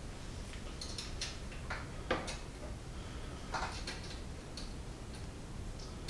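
Light metallic clicks and taps of a small bolt and washer being handled and fitted against the mower's steel handle and square-tubing bracket, with two sharper ticks about two and three and a half seconds in.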